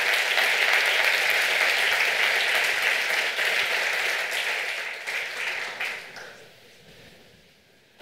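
Audience applauding, dense at first, then thinning out and dying away about six or seven seconds in.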